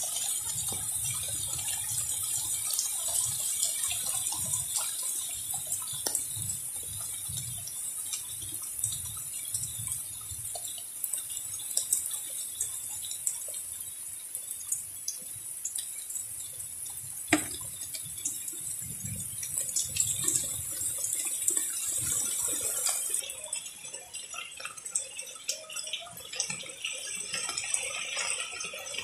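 Heavy rain pouring down in a storm, a dense steady hiss with scattered sharp drop ticks and one louder knock about seventeen seconds in. Gusts of wind add an uneven low rumble, and the hiss thins out somewhat about two-thirds of the way through.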